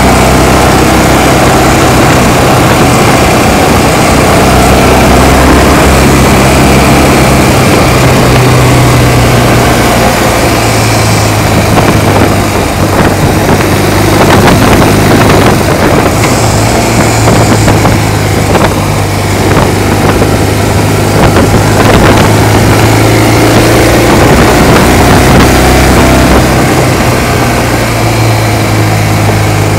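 Motorcycle-and-sidecar engine running steadily under way, its low note rising and falling with the throttle, under a constant loud rush of wind and road noise.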